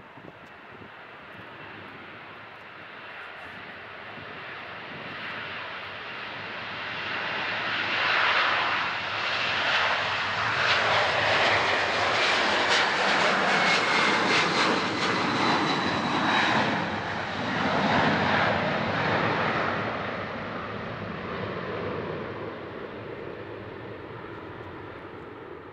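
Boeing 767-300's twin jet engines at takeoff power: a roar that builds as the airliner rolls and lifts off, is loudest for about ten seconds in the middle as it passes overhead, with a whine that drops in pitch, then fades as it climbs away.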